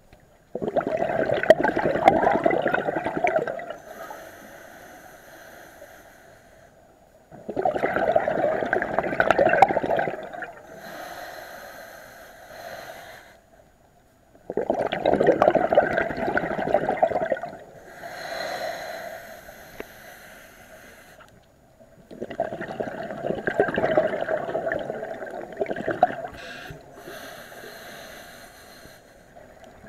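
Scuba diver breathing through a regulator: four long, loud exhalations of bubbles, each followed by a quieter, hissing inhalation, about one breath every seven seconds.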